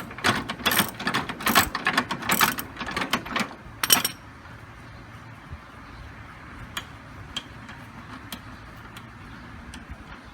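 Socket ratchet clicking rapidly as the steering wheel is turned against it, unscrewing the nut that holds the steering gear. The clicking stops about four seconds in, leaving only a few faint clicks.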